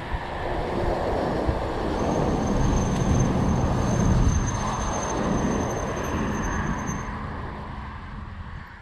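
Wind buffeting the microphone with road and tyre noise while riding a bicycle, swelling and then dying away over the last few seconds. A steady high whine sounds for a few seconds in the middle.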